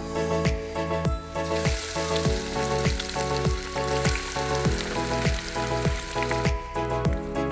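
Chicken pieces frying in hot oil, a steady sizzle that builds about a second and a half in and fades near the end, over background music with a steady beat.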